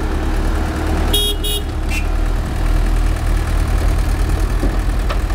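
Heavy vehicle engines running steadily with a low rumble, with two short horn toots a little over a second in and a brief third toot just after.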